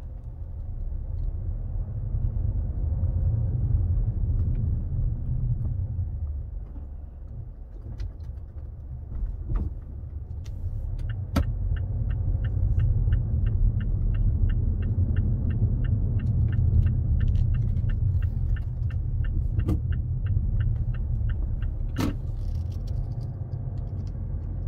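Low rumble of a car's engine and tyres heard inside the cabin while driving slowly. From about 11 s to 22 s a steady ticking comes in, about two and a half ticks a second: the turn-signal indicator clicking during a turn. A few sharp knocks also sound, the loudest about 22 s in.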